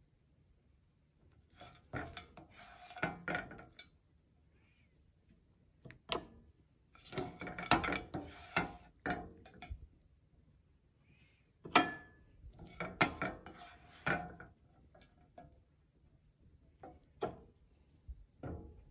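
A spatula scraping cooked sabudana khichdi across a nonstick pan and into a bowl. It comes in three bouts of scraping, with sharp knocks against the pan or bowl about six seconds in and again about twelve seconds in. The second knock is the loudest sound.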